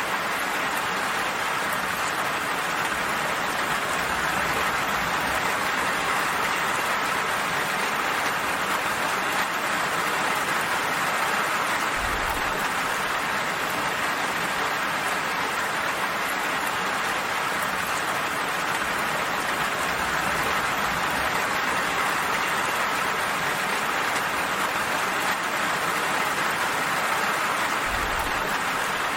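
Steady rain falling, an even hiss of drops with no pauses. Two brief low rumbles come about twelve seconds in and again near the end.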